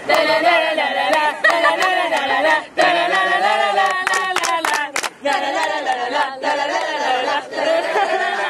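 A group of men and women singing a chant together without accompaniment, with sharp hand claps now and then.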